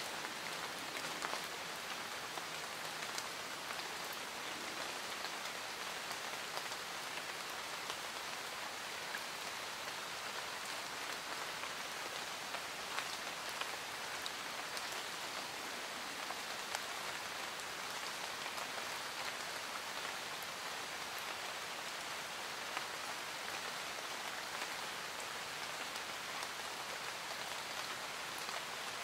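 Steady rainfall: an even hiss with many separate drops ticking through it.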